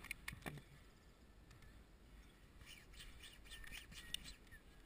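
Mostly quiet, with a few faint clicks at the start and faint high bird chirps in the second half.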